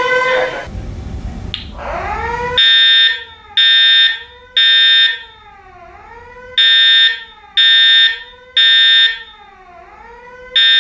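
Building alarm system sounding during a test. A wailing tone sweeps up and down about once a second, loud at first and then fainter. From about two and a half seconds in, loud horn blasts come in the temporal-three evacuation pattern: three short blasts, a pause, then three more, with a fourth group starting near the end while the sweeping tone carries on faintly beneath.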